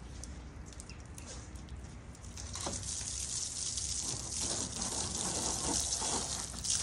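Water spraying from a hose onto a car's bodywork, starting about two and a half seconds in and then running as a steady hiss that grows louder.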